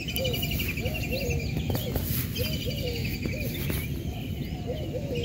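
Birds calling: a rapid pulsed trill comes in three bouts, with many short, low, whistled notes between them, over a steady low rumble.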